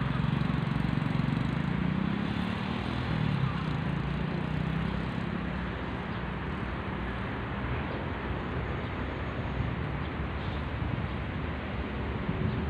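A motor engine hums, loudest over the first few seconds with slight rises and falls in pitch, then fades into a steady outdoor background hiss.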